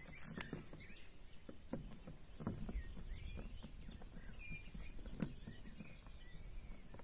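Quiet outdoor ambience with a low rumble of wind, faint bird chirps, and a few soft clicks and rustles as the plastic coiled leash of an inflatable paddleboard is threaded onto the board's tail ring.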